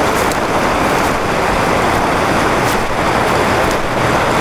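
Steady rush of a river running high over rapids.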